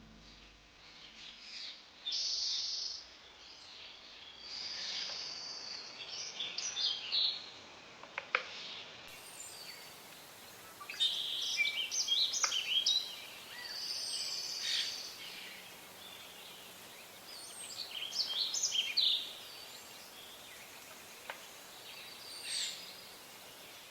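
Birds singing and calling: repeated bursts of high chirps and whistles, some sliding up or down in pitch, over a faint steady hiss.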